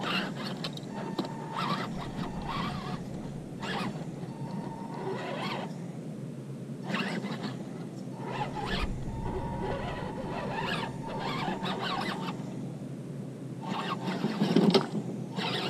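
Small electric motor and gearbox of an RC rock crawler (an ECX Barrage chassis) whining in on-off bursts as it is throttled along, over a steady low background rumble. The loudest burst comes near the end.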